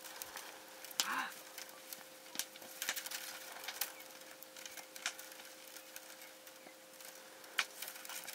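Wood cracking and snapping in irregular sharp clicks, the loudest about a second in and again near the end.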